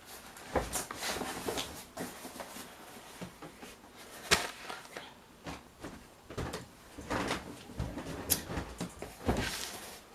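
Irregular knocks, taps and rustles of things being handled and set down, a sharper knock about four seconds in and another near the end.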